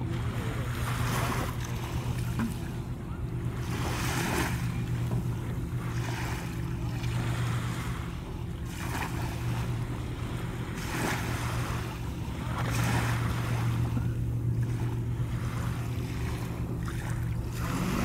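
Small waves lapping on a sandy shore, each washing in with a soft swell of noise every second or two, over a steady low hum.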